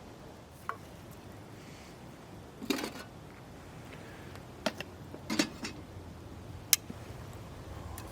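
Scattered light clinks and knocks of eating utensils and tableware being handled, a handful of sharp taps with a short rattle near the middle, over a steady low hiss.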